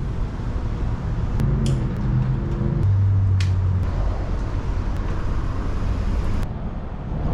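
A motor vehicle's engine droning past, dropping in pitch about three seconds in and fading out after about six seconds, over steady wind rumble on the microphone from riding a bicycle. A few sharp clicks come through.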